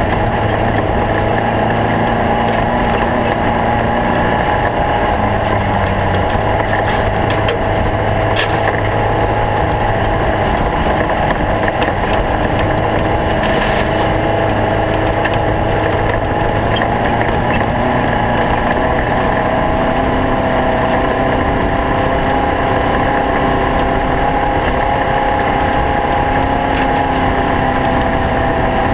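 Air-cooled Volkswagen flat-four engine of a stock Bug off-road race car running continuously under load, its pitch shifting a little with the throttle, with a couple of brief knocks from the car.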